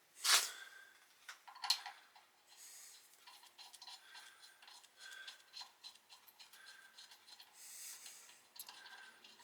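A couple of sharp knocks in the first two seconds, then faint, intermittent metal-on-metal scraping and small ticks as a threaded part is turned in a freshly tapped hole.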